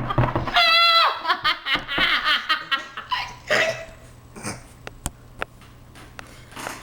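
Girls laughing in high-pitched, rapid bursts, starting with a squeal and dying away after about four seconds, followed by a few sharp clicks.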